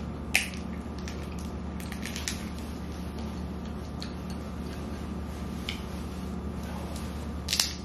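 Boiled crawfish being cracked and peeled by hand: several sharp snaps of shell breaking, the loudest about half a second in and near the end, over a steady low hum.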